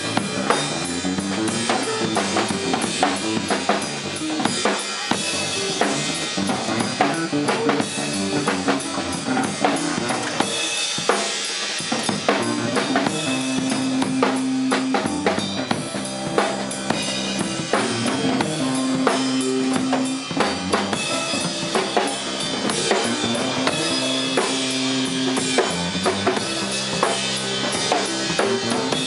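Drum kit and electric bass in a live instrumental jam: busy drumming on kick, snare and cymbals, with the bass returning to a long held low note every five or six seconds in the second half.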